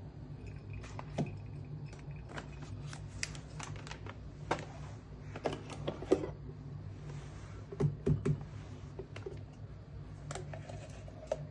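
Scattered light clicks and knocks of coffee-brewing gear being handled and set down on a countertop, the loudest about six seconds in and a quick pair about eight seconds in, over a steady low hum.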